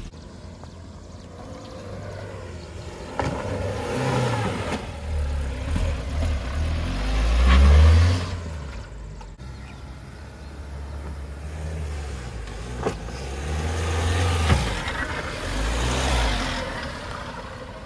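Suzuki Jimny and Mahindra Thar 4x4 engines revving in repeated surges as they climb a soft, rain-muddied dirt trail, loudest about eight seconds in, with a few sharp knocks.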